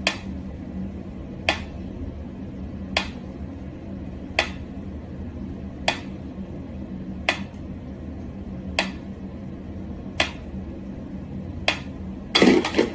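Mechanical pendulum metronome ticking slowly, one sharp click about every one and a half seconds. Near the end there is a short, louder clatter.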